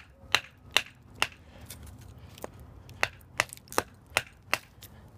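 Sharp wooden knocks, about eleven of them at roughly two a second with a short break near the middle: a TOPS Desert Son knife with a 3-inch blade being batoned down through a piece of wood on a chopping stump.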